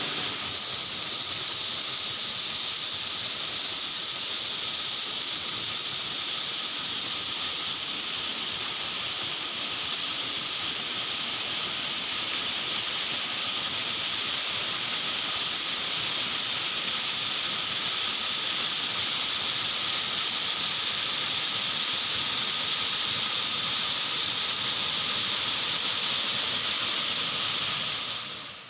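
Waterfall's rushing water as a steady hiss, with a high, even whine running through it; it fades out near the end.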